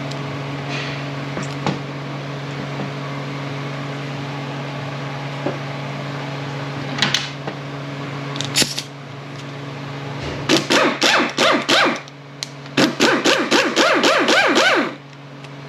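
Cornwell CAT2125 air impact wrench, freshly repaired, test-run in short trigger blips and then two runs of rapid hammering of a couple of seconds each near the end. A steady low machine hum sounds throughout.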